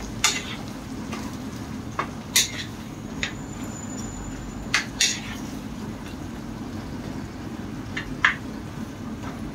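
Cooking utensil knocking and clinking against a pot as vegetables are stirred: a handful of sharp, scattered knocks over a steady low hum.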